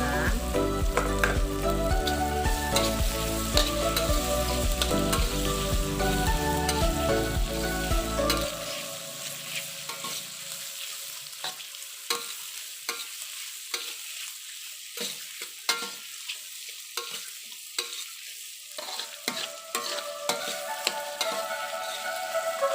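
Cap cay stir-frying in a pan: steady sizzling, with the utensil clicking and scraping against the pan as it is stirred. Background music plays over it for the first third, then stops, leaving the sizzle and stirring on their own.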